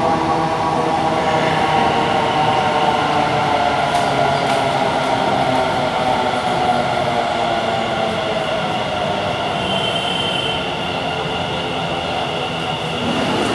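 Electric metro train of Kolkata's East-West Metro running alongside an elevated platform, its motors whining over a steady rumble, with some wheel squeal. The whine slowly falls in pitch. A short high tone sounds about ten seconds in.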